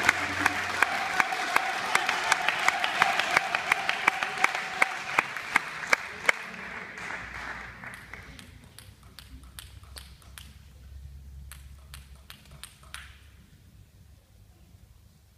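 Table tennis crowd clapping in unison, about three claps a second, over crowd noise; the clapping stops about six seconds in. Scattered light taps of a table tennis ball follow in the quieter hall.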